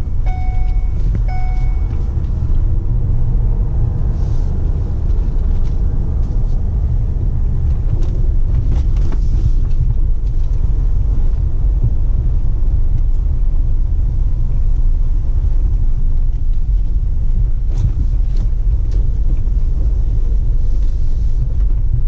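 Steady low road rumble of a vehicle being driven, heard from inside the cab, with a few short beeps in the first two seconds.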